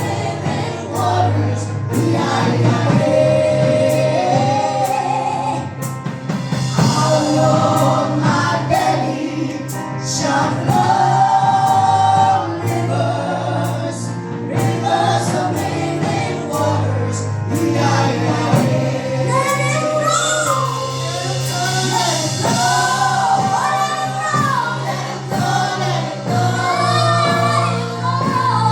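Gospel choir singing a song with instrumental backing and a steady beat.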